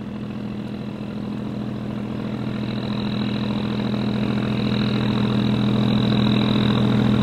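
Twin inboard engines of a large river cargo boat running steadily as it passes close by: a low, even hum with a thin high whine, growing louder throughout.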